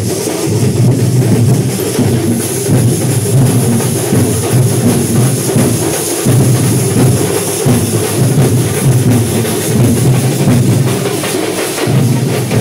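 Drum-led percussion music, loud and dense, with a steady driving beat.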